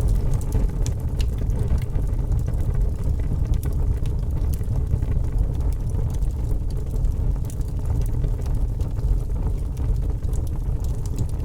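Fire crackling, with a steady low rumble of burning and scattered small pops and snaps throughout.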